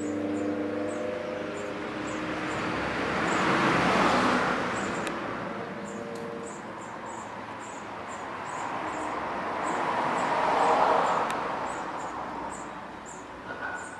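Two road vehicles pass one after another, each swelling up and fading away, loudest about four seconds and eleven seconds in. Faint, rapid high chirping, like insects, repeats throughout.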